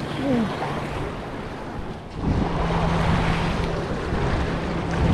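Sea water washing against the jetty rocks, with wind buffeting the microphone; it gets louder about two seconds in. A faint steady low hum runs underneath.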